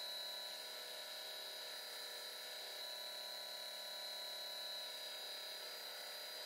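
Faint steady hum with a thin, constant high-pitched whine over it, unchanging throughout, with no strikes or grinding passes.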